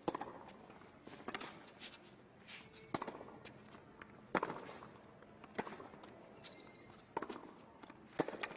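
Tennis rally opening with the serve: seven sharp racket strikes on the ball about every second and a half, the two players hitting in turn, with fainter ball bounces and court noises between.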